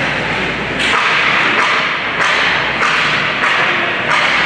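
Ice hockey play on the rink: skates scraping the ice in repeated strokes about once a second, with sticks and puck knocking. A steady low arena hum runs underneath.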